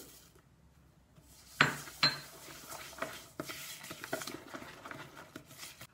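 Wooden spoon stirring thick waffle batter in a pot, scraping and knocking irregularly against its sides. A sharp knock with a short ringing clink comes about a second and a half in, as the stirring starts.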